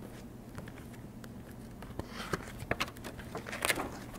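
Quiet room tone with a faint steady low hum. A few soft clicks and rustles come in the second half.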